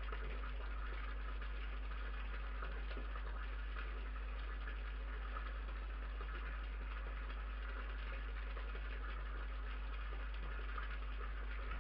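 Steady low electrical hum under an even hiss, the self-noise of a fixed night-vision garden camera's microphone. Nothing stands out above it.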